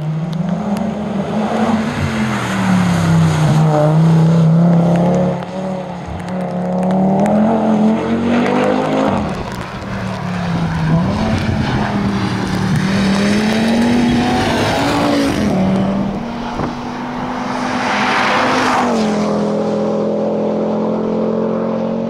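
Audi TT RS rally car's turbocharged five-cylinder engine revving hard. Its pitch rises and falls repeatedly through gear changes and lifts, then settles into a steady note near the end.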